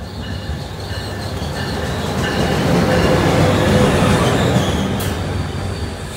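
NJ Transit ALP-45DP dual-mode locomotive running on diesel as it passes close by, its bell ringing about twice a second. The engine and wheel noise build to a peak a few seconds in as the locomotive goes past, then ease to the rumble of the coaches rolling by, with one sharp clack about five seconds in.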